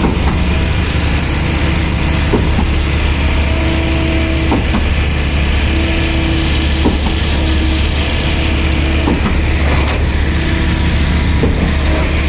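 Truck-mounted concrete pump running under load, its engine droning steadily, with a sharp knock about every two and a half seconds as the pump pistons stroke and change over. Concrete has just started flowing through the delivery line.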